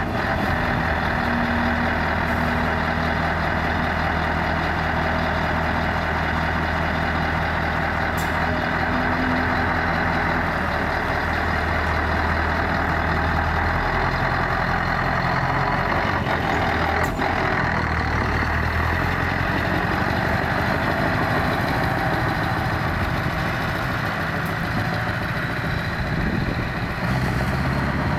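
Scania V8 truck engines idling steadily, a low even rumble with no revving.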